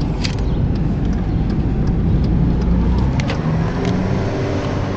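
Taxi cab's engine and road noise heard from inside the cab while driving, a steady low rumble.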